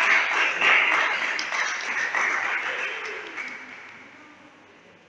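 Spectators applauding a point just won in a table tennis match, the clapping dying away over about four seconds.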